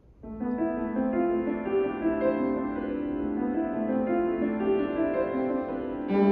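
A piano plays a soft introduction that starts about a quarter second in, with steadily changing chords. Near the end, a bowed cello comes in beneath it.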